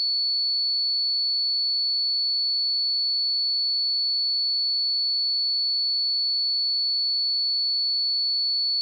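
A pure 4435 Hz sine-wave test tone, one high steady pitch held without change.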